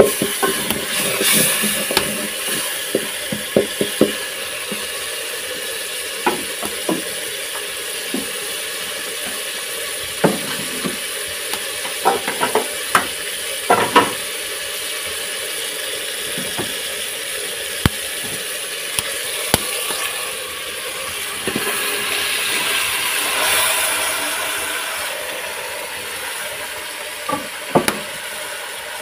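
Tomatoes and onions frying in a metal pot over a wood fire, with a steady sizzle, while a cooking spoon stirs and knocks against the pot in quick clicks at the start and again in short groups later. The sizzle swells briefly about three-quarters of the way through.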